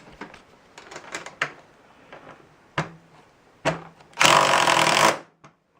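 Power drill driving a sheet-metal screw into a garage door panel: a few light clicks and knocks, then about a second of loud drilling that stops abruptly.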